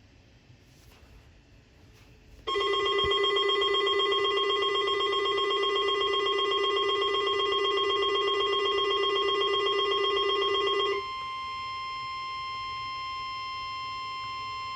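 Weather radio alert tones. About two and a half seconds in, a loud, harsh steady alarm starts; about eight seconds later it cuts off abruptly. That leaves the steady single-pitch NOAA Weather Radio warning alarm tone sounding alone, which signals that a National Weather Service warning broadcast is about to follow.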